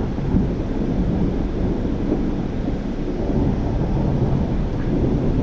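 Low, steady rumble of thunder as a thunderstorm begins.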